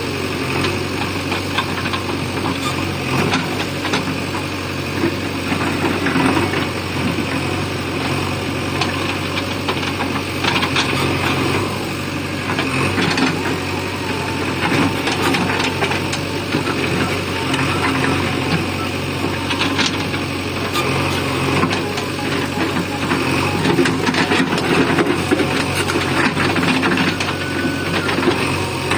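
JCB backhoe loader's diesel engine running steadily, with repeated knocks and scraping as the bucket breaks up an asphalt road surface.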